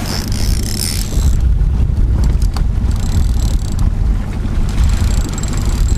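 A fishing boat's outboard motor running steadily at trolling speed, with wind buffeting the microphone.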